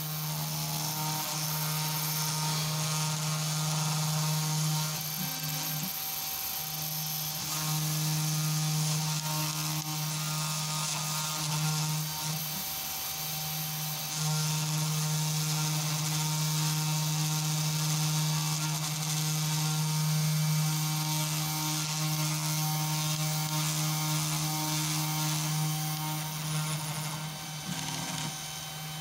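CNC2418 desktop router milling PCB traces into copper-clad board with a 0.2 mm V-shaped engraving bit: the spindle runs with a steady hum and a high hiss, and the hum dips briefly a few times as the cut goes on.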